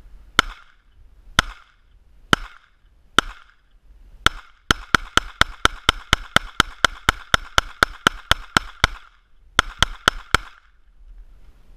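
A Glock 23 .40 S&W pistol firing: five single shots about a second apart, then a rapid string at about four shots a second, a short pause, and four more quick shots.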